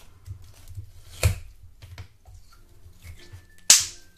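Small wet clicks and squelches of slime being handled, with a sharper squelch about a second in and a loud sticky pop near the end as a store-bought slime ball is pulled up out of watery clear slime.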